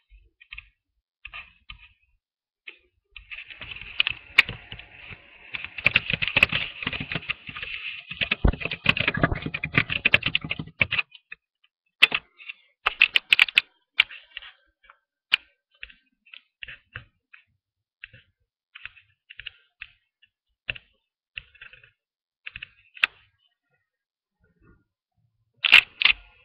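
Clicking and tapping on a computer keyboard close to the microphone: a dense run of clicks with rustling for several seconds, then scattered single clicks, with a louder cluster near the end.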